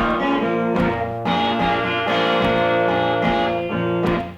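Blues song playing, an instrumental passage with guitar between sung lines.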